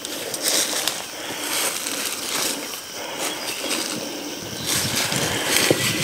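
Footsteps crunching and rustling through dry leaf litter and undergrowth, an uneven run of steps.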